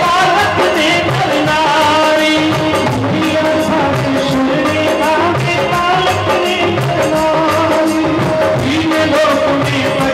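A man sings a devotional bhajan in praise of the Mother goddess, with instrumental accompaniment holding a steady tone under a drum beat.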